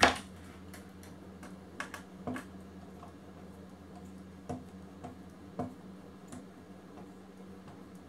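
Cabinet screw being turned by hand into a pine board with a multi-tool bit driver and Torx bit: scattered light clicks and ticks, a few seconds apart, over a steady low hum.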